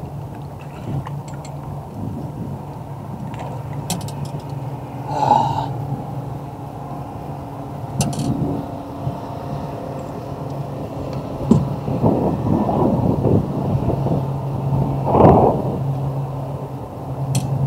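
A boat motor running with a steady low hum, with a few sharp knocks and rustles from fishing gear being handled.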